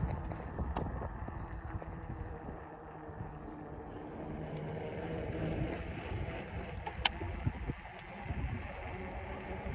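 Wind rumbling on the microphone and tyre noise while riding a bicycle, with a sharp click about seven seconds in.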